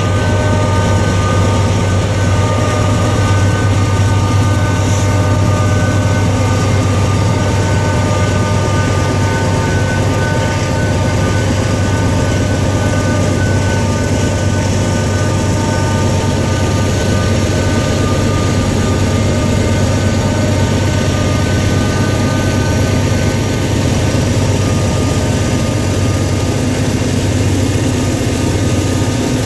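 Norfolk Southern GE freight locomotive, rebuilt from DC to AC traction, running under way, heard from a car pacing alongside: a steady low rumble with several steady whining tones over it, mixed with road and wind noise.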